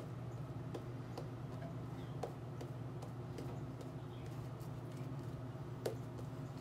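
Shaving brush working lather over the face and neck: soft wet clicks and pops at irregular intervals, over a steady low hum.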